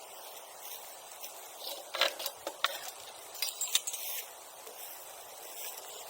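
Bonfire embers crackling, with a cluster of sharp pops and snaps starting about two seconds in and lasting about two seconds.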